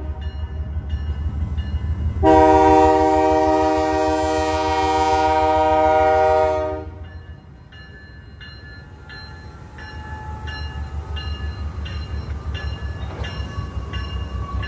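Canadian Pacific GE AC4400CW diesel locomotive sounding one long air-horn blast for about four and a half seconds, starting about two seconds in, over the low rumble of its diesel engine as it passes through a grade crossing. A bell dings steadily, about one and a half strokes a second, as the horn stops and the train rolls on.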